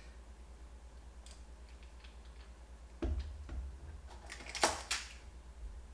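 Canon F-1 35mm film camera being handled while film is loaded: a knock about three seconds in, then light clicks and a short run of ratcheting clicks as the film advance is wound on, with one sharp click near the end. A steady low hum sits underneath.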